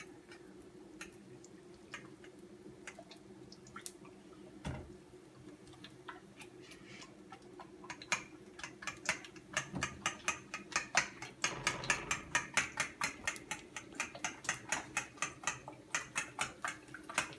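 Fork beating eggs in a ceramic plate: sparse taps at first, then a quick, regular run of clicks from about halfway, several a second, over a faint steady hum.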